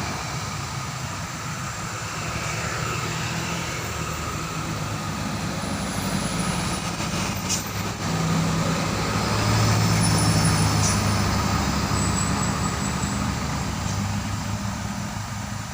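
Heavy diesel road traffic passing: a steady low engine drone over tyre and road noise, swelling to its loudest about ten seconds in and then fading.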